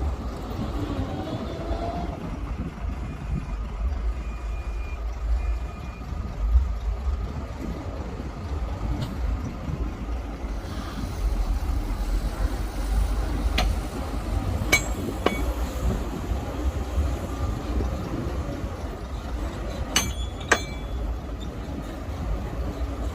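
Heavy earthmoving machinery running, with a steady deep diesel rumble. Sharp metallic clanks come twice around the middle and twice more near the end, and a few faint short beeps sound a few seconds in.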